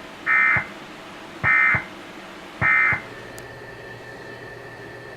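Emergency Alert System End-of-Message signal: three short bursts of warbling digital data tones, about a second apart, marking the end of the flash flood warning broadcast. A faint steady high tone follows.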